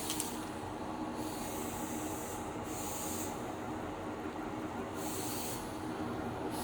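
Cough assist machine running: a steady motor hum, with air hissing that swells and falls back every second or two.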